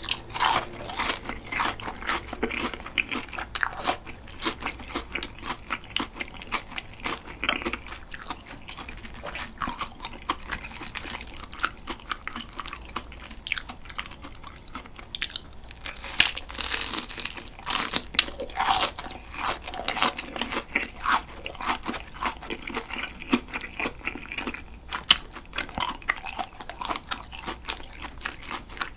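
Close-miked biting and chewing of crispy batter-fried king prawns: the coating crunches and crackles as it is chewed, with louder bites at the start and again about sixteen seconds in.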